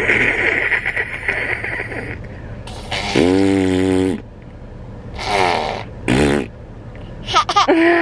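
A toddler blowing raspberries, a spluttering lip buzz, with a held vocal sound about three seconds in and giggling near the end.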